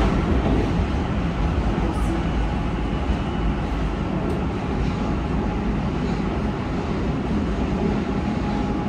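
Yokohama Municipal Subway 4000 series train running through a tunnel, heard from inside the car: a steady low rumble of wheels on rail.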